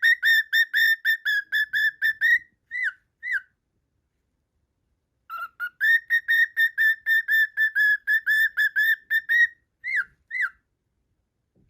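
Cockatiel whistling a song phrase: a fast run of short, even whistled notes, about five a second, ending in two separate slurred notes. After a pause of a few seconds the same phrase comes again.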